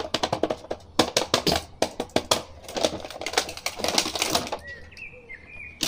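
Cardboard toy box and plastic packaging tray being handled and pulled apart: rapid, irregular crackling and clicking.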